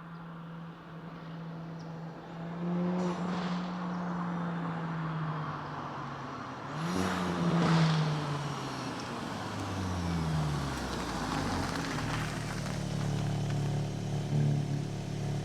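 Volkswagen Mk8 GTI's turbocharged four-cylinder with a Milltek cat-back and downpipe, heard while driving: the engine note rises and falls as the car accelerates and eases off, with its loudest, rising pull about seven seconds in.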